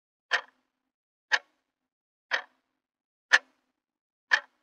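Clock-ticking sound effect: five sharp ticks, one a second, with dead silence between them.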